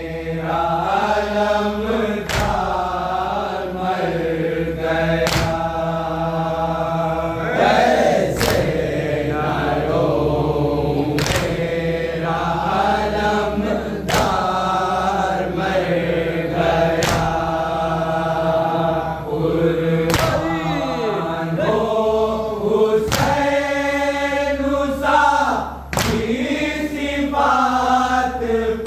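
A group of voices chanting a noha, a Shia mourning lament, in chorus. A sharp slap about every three seconds keeps time with it: matam, the group's rhythmic chest-beating. A steady low hum runs beneath.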